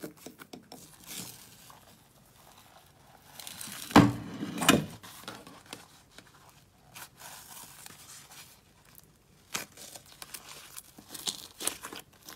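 Green slime being pressed, stretched and squeezed by hand: soft sticky crackling and tearing sounds, with two louder sticky snaps about four seconds in and a cluster of sharp crackles near the end.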